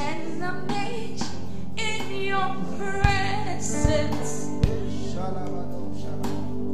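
A woman sings a slow gospel worship song into a microphone over sustained backing chords from a live band, with three drum hits midway.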